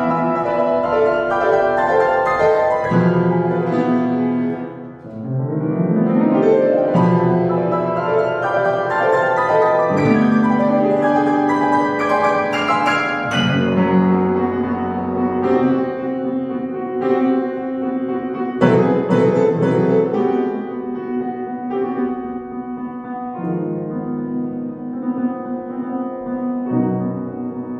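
Upright piano played solo in a classical piece: full chords and melody throughout, with a brief softening about five seconds in followed by a quick rising run of notes.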